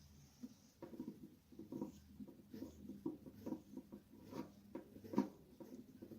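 Irregular small scraping and clicking as the stiff shaft and blade hub of an electric fan motor are worked by hand, the shaft gummed up with dust and old lubricant in its bushing. A faint steady hum runs underneath, the sound of the stalled fan motor straining to start.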